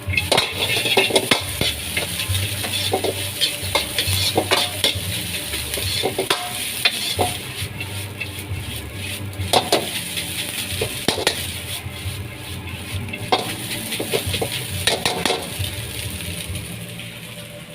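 Fried rice sizzling in a hot wok while it is stirred and tossed, with irregular metal clanks and scrapes against the wok.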